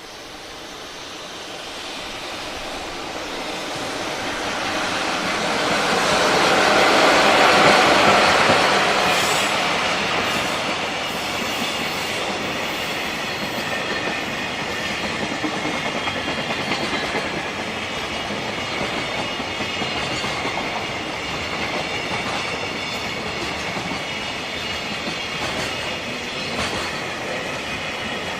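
Freight train approaching and passing: the noise swells to a peak about eight seconds in as the head of the train goes by, then a long string of freight wagons rolls past steadily, with faint ticks of wheels crossing rail joints.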